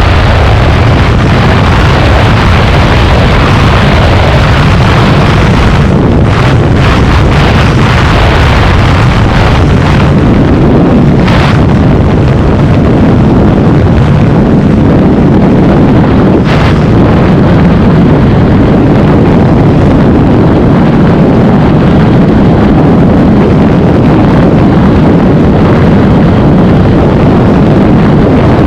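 Hero Xtreme 160R's single-cylinder engine running hard at high speed on a top-speed run, with loud wind rushing over the microphone.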